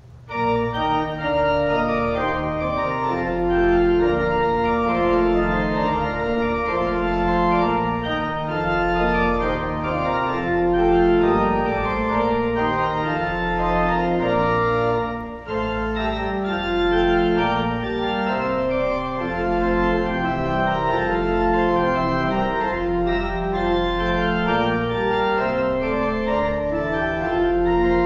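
Church organ playing the closing voluntary (postlude) after the blessing: sustained full chords over a deep pedal bass. It starts abruptly about half a second in, with a brief dip in loudness a little past halfway.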